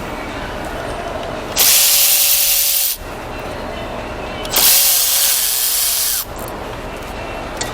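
Compressed air let out in two hissing bursts of about a second and a half each, the second starting about three seconds after the first, with a faint whistle that wavers during the second. It sounds like an air tool or blow gun in use during engine disassembly.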